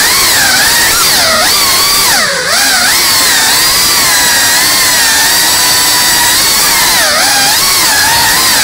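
FPV drone's brushless motors and propellers whining at a high pitch that follows the throttle, dipping sharply and climbing back about two and a half seconds in and again about seven seconds in, otherwise holding steady.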